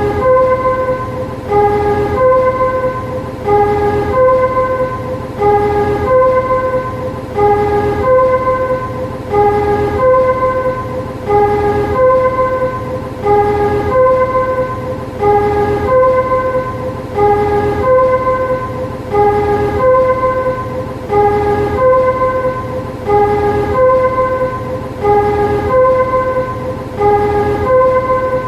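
Shunting motor car's warning chime: a short melody of a few notes repeating about every two seconds, over a low steady rumble.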